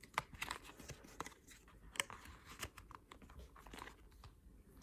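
Hands handling a small leather trifold wallet: light rustling of the leather flaps and plastic cards shifting in the card slots, with a few faint sharp clicks.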